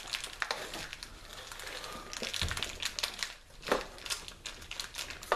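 Plastic toy packaging crinkling and crackling as hands pull and tear it open, with many small irregular ticks.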